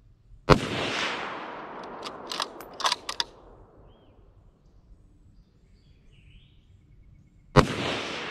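Two rifle shots about seven seconds apart, each followed by a long rolling echo that dies away over a couple of seconds. A few sharp clicks come two to three seconds in, between the shots.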